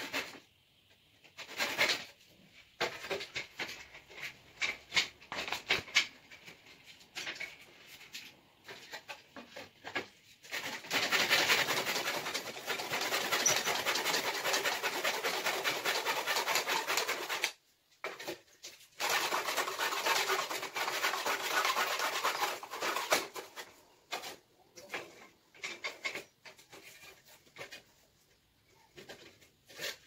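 Hand back saw cutting across a thick fallen tree branch in rapid back-and-forth strokes: short, stop-start bouts of sawing at first, then two long stretches of steady fast sawing in the middle, then a few scattered strokes near the end. The wood is hard going to cut through.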